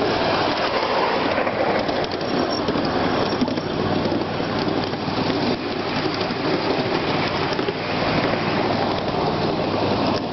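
1.5-inch-scale ride-on miniature train rolling along its track under load, its steel wheels on the rails making a steady, noisy rumble with faint clicks.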